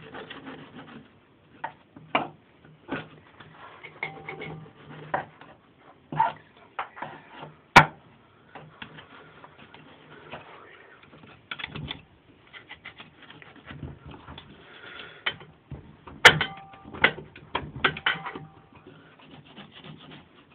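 Irregular scraping and rubbing on metal as thick residue is worked off an old air compressor's parts with a screwdriver and light sandpaper. Two sharp clicks, one about 8 seconds in and one about 16 seconds in, stand out as the loudest sounds.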